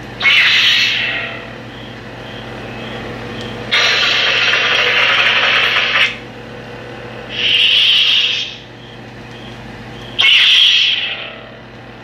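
Lightsaber sound board (Plecter Labs Crystal Focus) playing through the hilt's speaker: an ignition sound as the LED string blade lights, then a steady low hum. Over the hum come several loud effects, a long one about four seconds in that cuts off suddenly two seconds later, then shorter swells near the middle and about ten seconds in.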